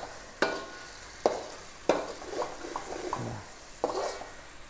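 Metal spatula stirring a spice paste in an aluminium wok, scraping and knocking against the pan about four times, over a light sizzle of the paste frying in oil.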